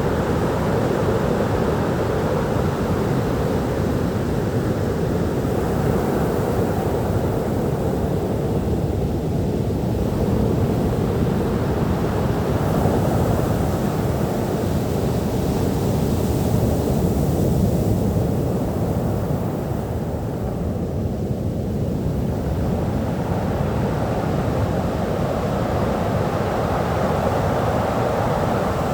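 Sea waves breaking on a beach: continuous surf noise that swells and eases every several seconds as waves come in.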